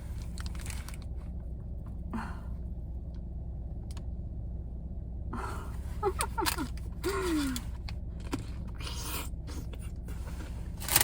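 Steady low hum of a car running, under short bursts of crunching and chewing from someone biting into a whole dill pickle, with a few short falling 'mm' sounds from the eater in the middle.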